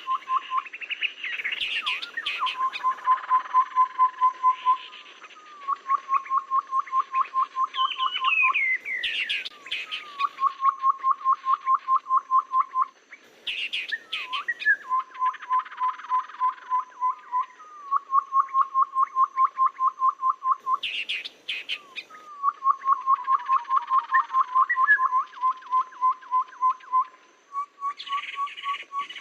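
Recorded song of tepus babblers: runs of quick, evenly spaced piping notes, about seven a second, each run lasting two to three seconds and repeated over and over. Higher chirps and twittering come between the runs.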